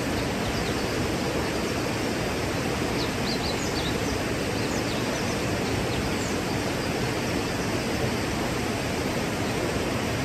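A 110-foot waterfall's falling water making a steady, unbroken rush. A few faint, short, high chirps come through it now and then.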